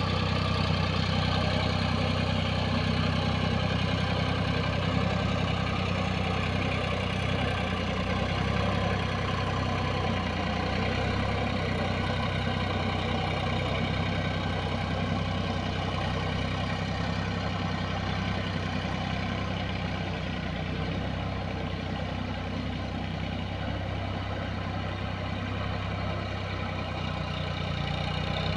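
Tractor diesel engine running steadily at one even speed.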